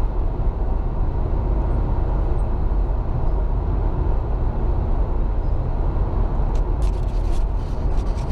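Steady road and engine noise heard inside a moving car, mostly low rumble, with a few light clicks near the end.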